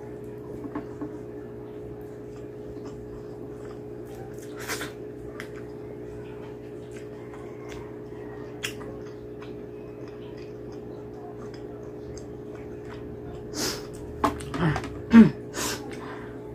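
Faint chewing and small mouth clicks over a steady background hum; near the end, a quick cluster of louder sniffs and snorts from a nose running from very spicy curry.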